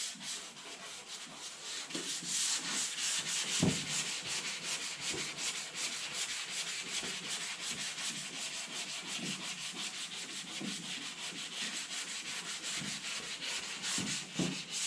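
Hand sanding block with sandpaper scratching back and forth over guide-coated primer on a car body panel, in quick short strokes. A single light knock about four seconds in.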